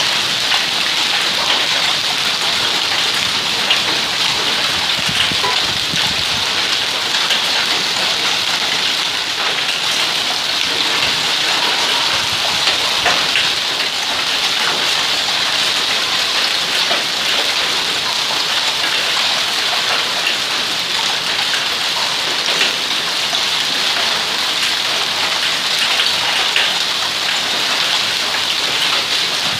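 Heavy hailstorm with rain: countless small hailstones pelting brick paving and patio furniture, a loud, steady, dense clatter over the hiss of rain.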